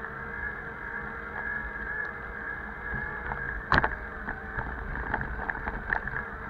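Bicycle ride heard through a bike-mounted action camera: steady wind and road noise, with sharp knocks and rattles as the bike goes over bumps, the loudest about four seconds in and several smaller ones after.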